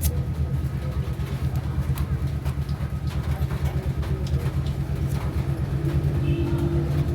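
Rewound Panasonic stand fan motor running under power on test, a steady low hum with a fast flutter.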